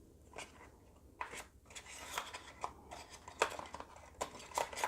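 Packaging being handled: a run of light rustles and crisp clicks from about a second in, as the box and its paper and plastic contents are moved about.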